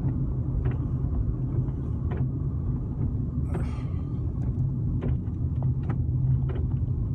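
Steady low rumble of a car on the move, heard inside the cabin, with faint ticks about every second and a half.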